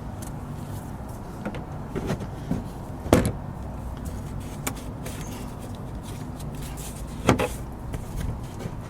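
Sharp plastic clicks and knocks as push-pin clips are prised out of a car's wheel-well liner, the two loudest about three and seven seconds in, over a steady low hum.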